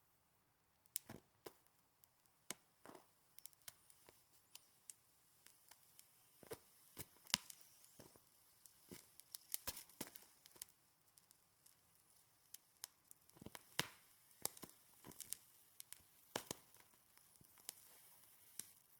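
Snow being handled and crushed, giving irregular crisp crunches and crackles, a few a second, some sharp and loud among fainter ones.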